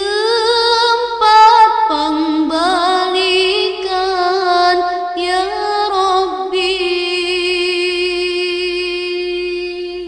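Sholawat, an Islamic devotional song in praise of the Prophet, sung with ornamented, bending vocal lines over a steady held drone.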